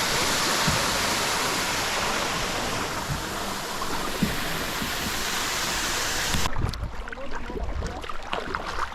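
Steady rushing water noise around a kayak. It cuts off abruptly about six and a half seconds in, leaving a quieter stretch with small scattered knocks and splashes.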